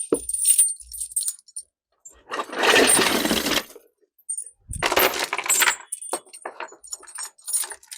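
Metal chain jangling and clinking as it is shaken and let fall, made as a foley chain effect. It comes in several rattling bursts, with the longest starting about two and a half seconds in, and scattered clinks between them.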